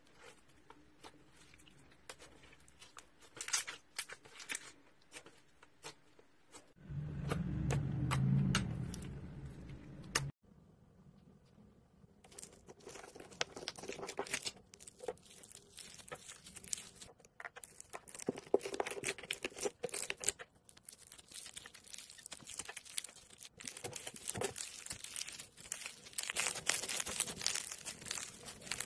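Hands squeezing and stretching slime, giving dense sticky crackles, clicks and crinkles in several short separate clips, with a low rumble of handling in one of them.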